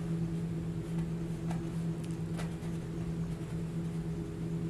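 A steady low electrical or mechanical hum in a small room, with a couple of faint light ticks midway through.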